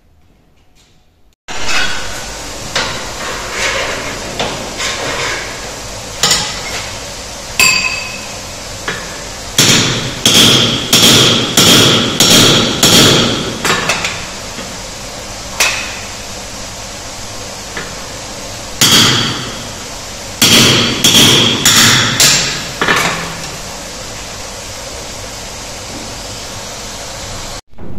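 Hand hammer striking a handled slitting chisel driven into a red-hot steel bar on an anvil, hot-splitting the bar before a square punch is driven through. Scattered single ringing blows, then two quick runs of about two blows a second, over a steady rushing noise.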